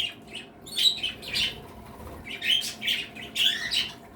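A room full of small pet parrots chirping: short, high calls from several birds, coming in uneven clusters with brief gaps between them.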